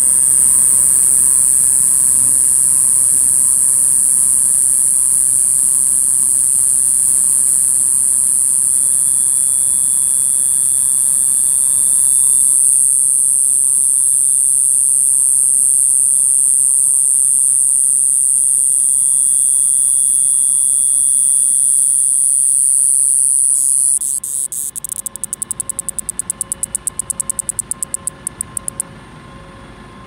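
Iwasaki's grass cicada (Mogannia minuta), Japan's smallest cicada, singing: a loud, continuous high-pitched buzz. Near the end the buzz breaks into a rapid stutter of pulses for a few seconds and then stops.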